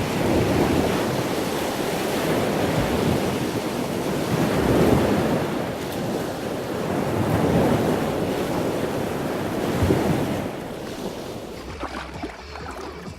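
Rushing noise of wind buffeting the microphone and waves breaking, swelling and easing every few seconds and dying down near the end.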